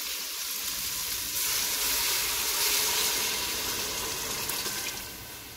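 Water poured into an aluminium pressure cooker of frying chana dal and tomato masala, splashing and sizzling on the hot oil, tailing off near the end.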